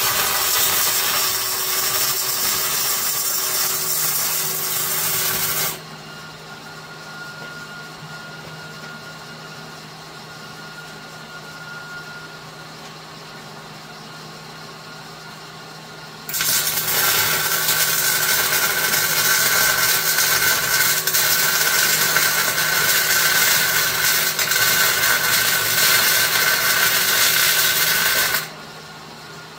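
Electric arc welding on a steel frame: a steady, loud crackling hiss for about six seconds, then again from about sixteen seconds in for about twelve seconds. Between the two welds a steady low hum carries on.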